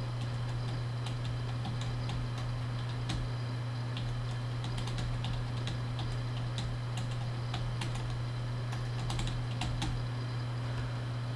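Typing on a computer keyboard: irregular keystroke clicks as a sentence is typed, with short pauses between runs of keys, over a steady low hum.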